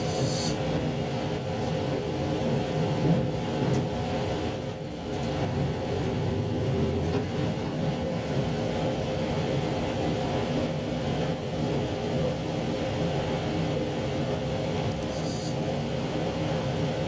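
JR Shikoku 2700 series diesel railcar running steadily under way: a steady engine hum with several tones over the rumble of the wheels on the track. Two brief faint high hisses, one at the start and one near the end.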